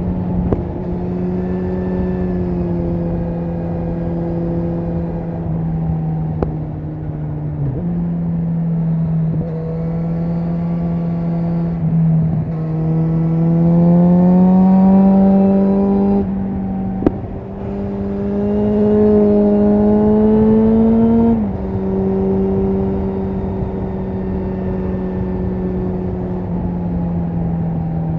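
Exhaust note of a Kawasaki Versys 1000's 1043 cc inline-four through an Akrapovic carbon exhaust with the dB killer removed and the catalytic converter deleted, under way at a steady cruise. Twice the revs climb as the bike accelerates, and the second climb ends in a sudden drop in pitch.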